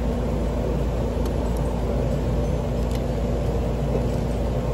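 Steady low hum of running industrial machinery, with a couple of faint ticks.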